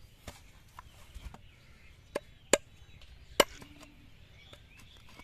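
Machete chopping into the husk of a green coconut, cutting the top open: a series of sharp, irregularly spaced chops, the loudest two about two and a half and three and a half seconds in.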